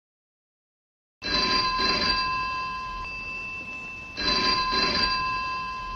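Telephone bell ringing twice, each ring a quick double burst, the first about a second in and the second about three seconds later.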